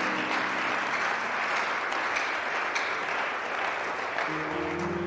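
A congregation applauding: dense, steady clapping that eases a little near the end.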